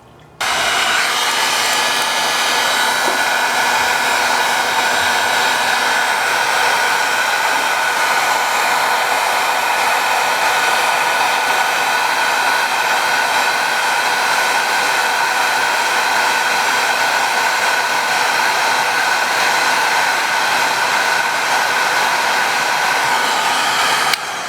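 Hot-air blower running steadily, heating a phone's back to soften the adhesive under its camera glass; it switches on just after the start and cuts off near the end.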